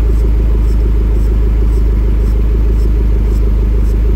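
Toyota MR2 engine running at a steady speed, a constant low rumble with no revving.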